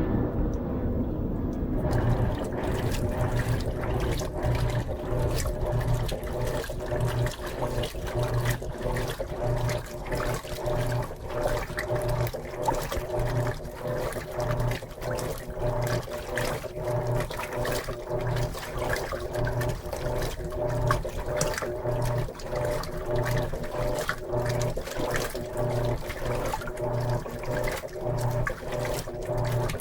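Top-load washing machine (Electrolux LM13Q) agitating a load of jeans in rinse water: the motor hums in a steady back-and-forth rhythm about twice a second under sloshing, splashing water, starting up about two seconds in.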